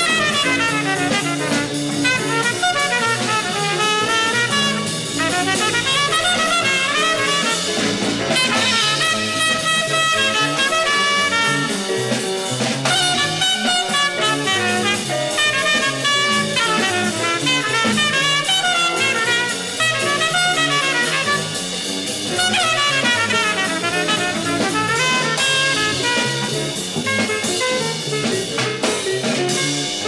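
Bebop jazz septet of two tenor saxophones, two trumpets, piano, double bass and drums playing, with quick runs of notes rising and falling over the rhythm section, heard from a restored vinyl LP transfer.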